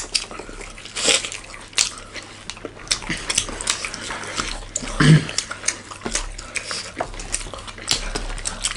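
Close-miked eating sounds: chewing and wet lip smacking with many small irregular clicks, and a short low 'mm'-like sound about five seconds in.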